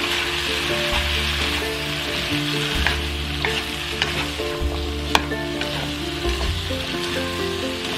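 Green beans and carrots sizzling in a nonstick wok as they are stir-fried with a wooden spatula, with a few sharp clicks of the utensil against the pan, the loudest about five seconds in. Background music plays underneath.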